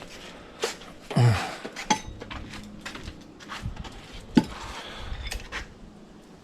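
Metal parts and tools being handled: a run of clanks and clinks, the loudest about a second in and again just past four seconds in, one leaving a short ring.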